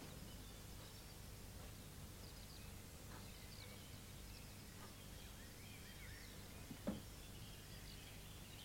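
Very quiet room tone with a low steady hum and scattered faint high chirps, and one soft knock about seven seconds in.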